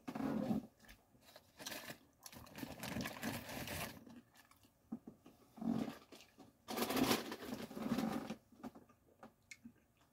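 Paper wrapper of a fast-food chicken wrap crinkling and rustling as it is handled and peeled open, in several uneven bursts, the loudest near the end.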